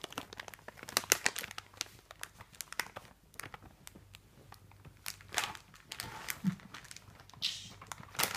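Plastic prawn cracker packet crinkling and rustling in irregular bursts as a small dog rummages with his head stuck inside it, with a quieter patch a couple of seconds in.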